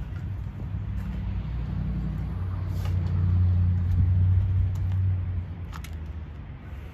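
A motor vehicle's engine running with a low, steady hum that grows louder for a couple of seconds and then fades.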